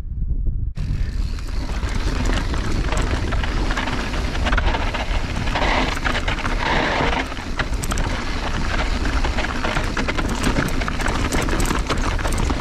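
Mountain bike descending a loose, rocky dirt trail: tyres crunching over gravel and dirt with frequent sharp clicks and rattles from the bike, over a low wind rumble on the microphone. The first second holds only the low rumble before the crunching and rattling come in.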